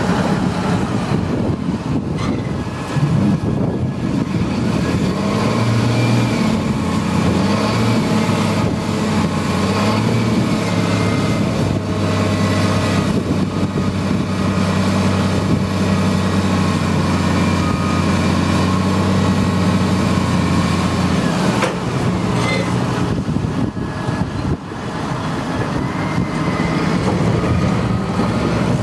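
Valtra tractor engine run up to higher revs to drive the hydraulics tipping a loaded silage trailer. The revs rise about five seconds in, hold steady, and drop back about twenty-one seconds in.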